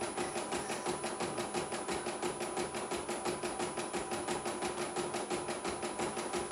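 CNY E900 portable computerised embroidery machine stitching a design, its needle strokes coming in a rapid, even rhythm over a steady motor hum. It is running very smoothly.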